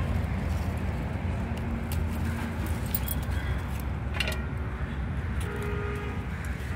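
Hands picking green beans off the plant: scattered clicks and rustles of leaves and pods, with bangles on the wrist clinking, over a steady low rumble.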